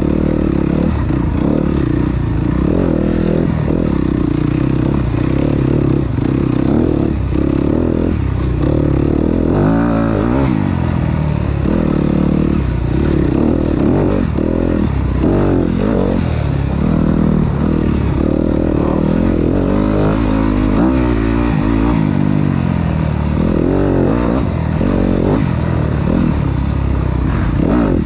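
Enduro dirt bike engine under way on a rough trail, the revs climbing and dropping again and again as the throttle is worked.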